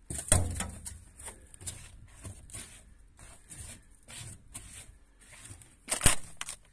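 Shoe scraping and crunching dirt and pine needles across a rusted steel pickup bed floor, a run of short rasping scuffs, with a sharp knock just after the start and the loudest knock about six seconds in.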